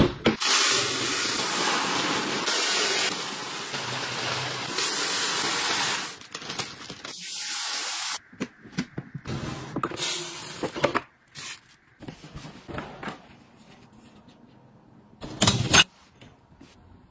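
Dry rice and beans poured into a clear plastic grain dispenser: a steady rushing hiss for about six seconds, then lighter scattered rattling as grains are scooped in. Near the end comes one short clatter as ceramic dishes are handled in a dishwasher rack.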